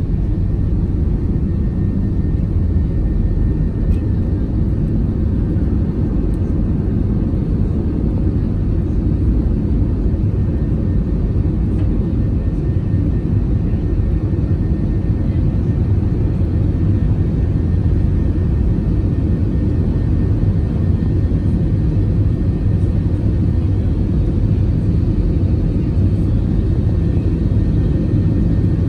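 Airbus A321 jet engines at takeoff thrust, heard from inside the passenger cabin: a loud, steady deep rumble with a faint high whine, through the takeoff and initial climb.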